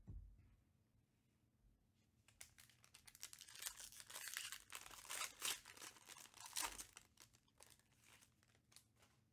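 Foil Panini Prizm UFC trading-card pack crinkled and torn open by hand, dense crackling and tearing for several seconds in the middle, after a single thump at the start.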